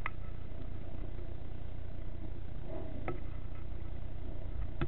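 A steady low rumble with three short, sharp clicks: one at the start, one about three seconds in and one near the end.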